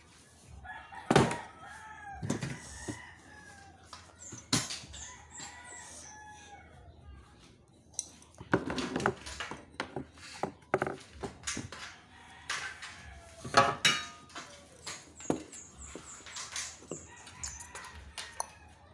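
Chickens clucking and a rooster crowing, over clicks and sharp knocks of aluminium sliding-window profiles being handled and fitted; the loudest knocks come about a second in and again past the middle.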